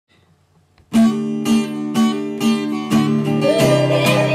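Intro music: an acoustic guitar strummed steadily about twice a second, starting about a second in, with a wavering higher melody joining near the end.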